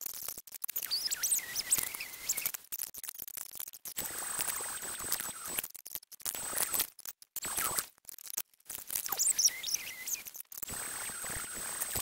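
Fast-forwarded workshop audio: squeaky, high-pitched chirps alternate with stretches of a steady high whine and hiss from a random orbital sander working the board, broken by several abrupt cuts.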